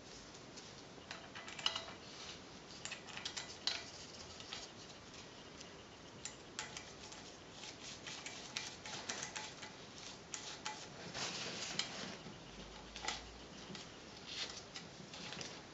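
Small steel screws clinking and tapping against a pit bike's aluminium engine case and oil pump as they are handled and fitted by hand, in scattered light clicks with short scrapes, a couple of sharper clicks about two and four seconds in.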